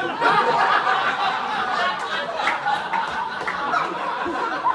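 A roomful of guests laughing together at a joke, many voices laughing loudly at once.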